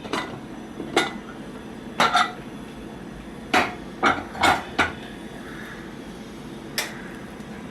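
Metal clinks and knocks of pressure-cooker cookware being handled, about seven separate short strikes spread out unevenly.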